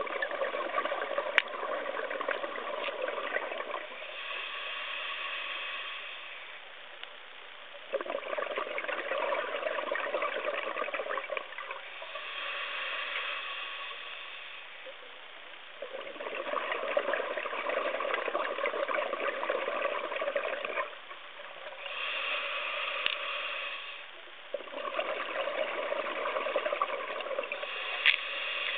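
Scuba breathing through a regulator, heard underwater: bubbling, crackling exhalations of four to five seconds alternate with shorter hissing inhalations, about three and a half breaths in all.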